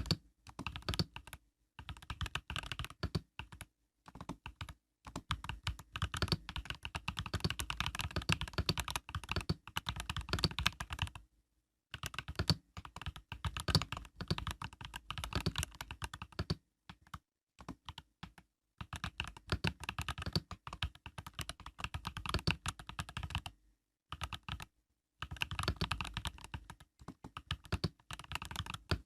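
Typing on an Epomaker EK68 mechanical keyboard with Epomaker Budgerigar tactile switches (POM stems): fast runs of keystroke clacks, broken by several short pauses.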